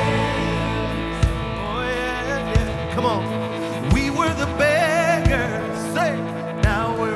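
Live worship band playing a song: drums striking on a slow beat about every second and a half under sustained keyboard chords, with a male lead singer's voice sliding up and down over the top.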